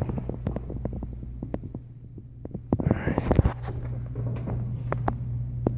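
Footsteps and knocks from handling a phone while climbing stairs indoors, over a steady low hum. A louder rustle comes about three seconds in.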